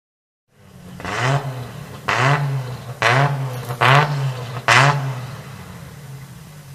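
Nissan Patrol's RB25DET turbocharged straight-six engine being blipped five times, about once a second, each rev rising sharply and dropping back, then settling to idle.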